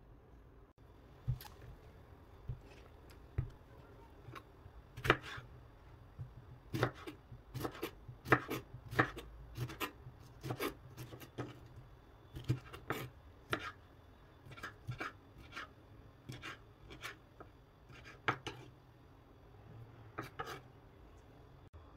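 Chef's knife cutting a lemon on a bamboo cutting board: irregular sharp knocks of the blade against the wood, a few at first, then quick runs of cuts from about five seconds in, thinning out toward the end.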